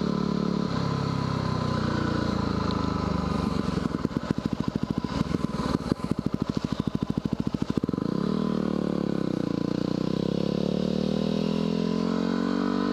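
Yamaha WR250R's 250 cc single-cylinder four-stroke engine on the move. The revs fall about a second in and drop to a low, uneven idle with its firing pulses plain as the bike slows for a stop sign. From about two-thirds of the way in, the engine revs up again twice as it pulls away.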